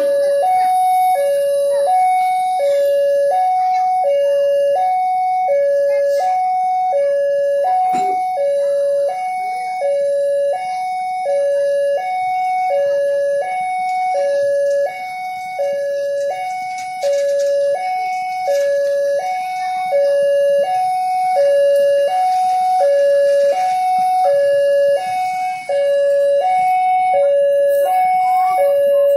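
Railway level-crossing warning alarm sounding a steady two-note high-low chime, about one high-low pair a second. Under it, the fainter rolling noise of passenger coaches passing over the crossing.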